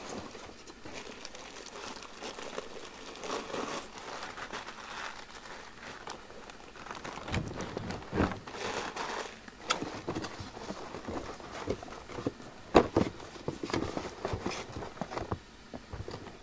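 A clear plastic bag crinkling and rustling as a CB radio wrapped in it is pulled out of its polystyrene box packing, with a few sharp knocks of the packing and box among the rustling.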